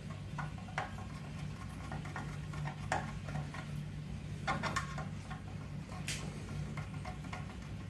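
Screwdriver tip clicking and scraping against a metal part, in irregular small taps with a few sharper clicks, over a steady low hum.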